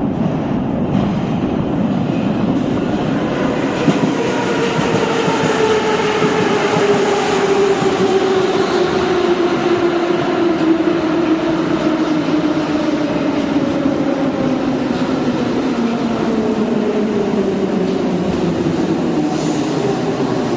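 Long-distance passenger train running into a station: wheel and rail noise, with a whine that falls steadily in pitch over many seconds as the train slows.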